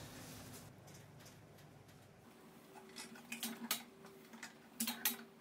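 Quiet room tone at first, then from about halfway a string of light metallic clicks and taps as a manual tube bender is worked, over a faint steady hum.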